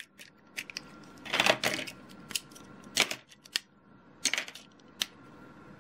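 Lego bricks being handled and pried apart by hand: irregular sharp plastic clicks and clatters, some in quick clusters.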